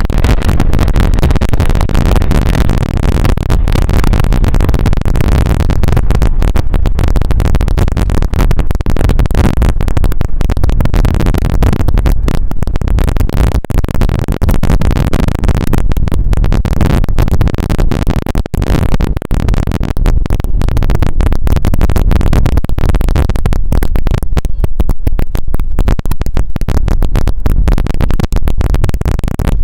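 Jet engines of a Boeing 767-300ER airliner at takeoff power during its climb-out: a loud, steady low roar that holds on as the aircraft climbs away.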